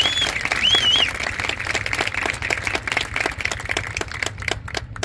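Audience in stadium bleachers applauding, with a couple of whistles in the first second; the clapping thins out near the end.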